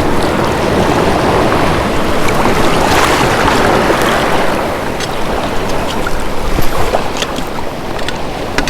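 Ocean waves breaking and washing over the shore, one surge building and fading about three seconds in, with wind buffeting the microphone. Scattered small clicks in the second half.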